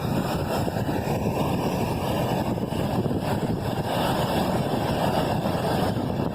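Steady rushing of falling water from a waterfall.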